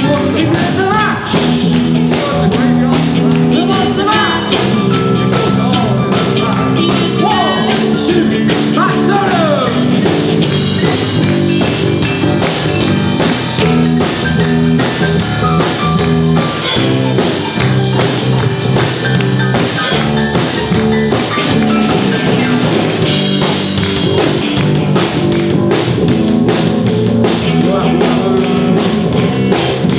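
Live band playing a rock-and-roll tune, with drum kit and guitar over a steady beat.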